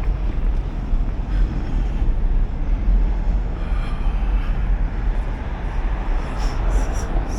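Steady low rumble of outdoor urban background noise, loud and unbroken, with no clear single event standing out.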